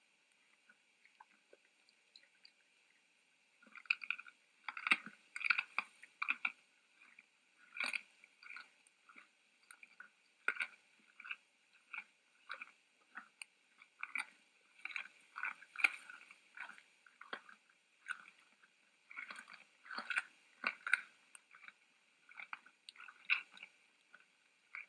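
Red deer chewing and crunching their feed: irregular crisp crunches, sparse at first and coming thick and fast from about four seconds in.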